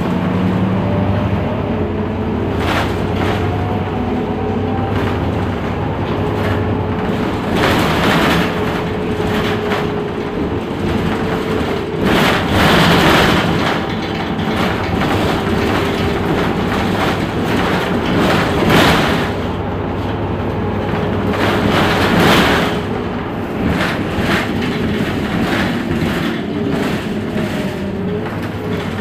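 Heuliez GX 327 city bus under way: a low engine drone with a faint whine that slowly rises and falls, and several louder rushes of noise lasting a second or so.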